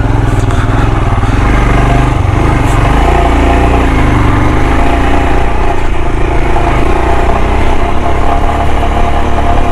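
Royal Enfield Himalayan's single-cylinder engine running steadily under load while the motorcycle is ridden up a rough off-road track, its note wavering slightly.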